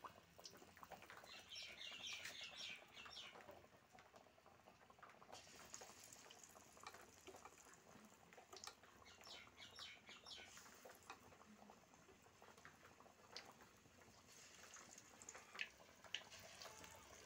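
Faint sizzling and crackling of batter-coated bottle gourd slices deep-frying in hot oil in a metal wok, coming in clusters of quick crackles, with a couple of sharper clicks near the end.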